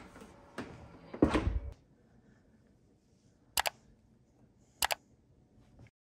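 A brief knock and rattle of handling at the open dishwasher about a second in, the loudest sound here. Then near quiet, broken by two sharp mouse-click sound effects about a second apart, from a like-and-subscribe button animation.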